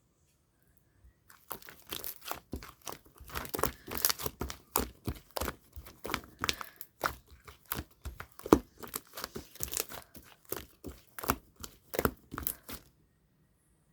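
Clear slime being squeezed and stretched by hand, giving a dense run of sharp clicks and crackling pops for about eleven seconds, then stopping.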